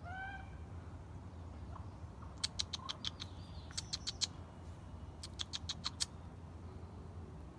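A deer browsing close by: clusters of sharp clicks and snaps from shrubs and twigs as it feeds, in four short runs over a few seconds.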